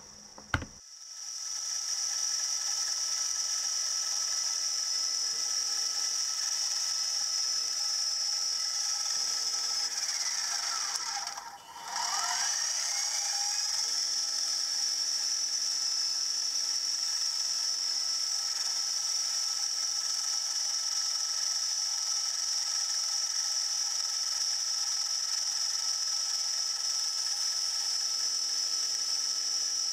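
Small milling machine's spindle starting with a click and running up to a steady high whine with gear noise while it drills the crank pin hole. About 11 seconds in it winds down briefly, then runs back up and keeps running steadily.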